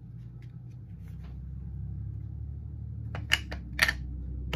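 Hard plastic taps and clicks of a clear acrylic stamp block being inked on an ink pad: a few faint clicks, then several sharp taps in the last second and a half, over a low steady hum.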